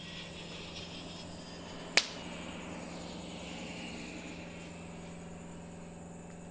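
Night-time outdoor ambience: a steady low hum under a faint, even high-pitched insect drone, broken about two seconds in by a single sharp click.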